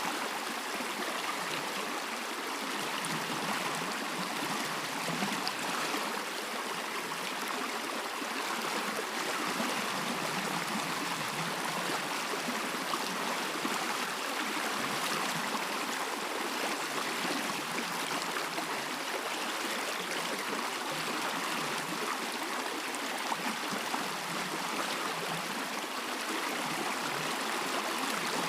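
A stream running with a steady rush and gurgle of flowing water.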